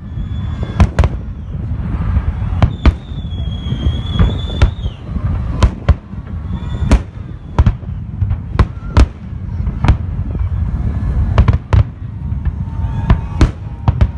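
Fireworks salute bursting overhead: a string of sharp bangs at irregular intervals, often one to two a second, over a continuous low rumble.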